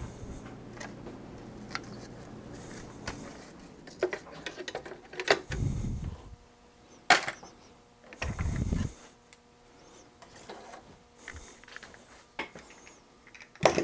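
Clicks, knocks and dull thumps of the Osborne 1's large main circuit board and chassis parts being handled and set in place, with a sharp click about seven seconds in and another at the end. A low steady hum stops about three seconds in.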